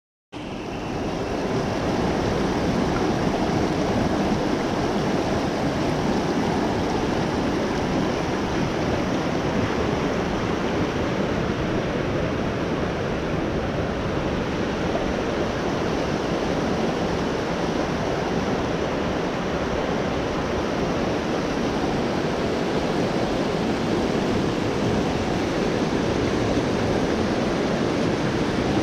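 Fast-flowing creek rushing over rocks and rapids, a steady roar of white water that cuts in suddenly right at the start.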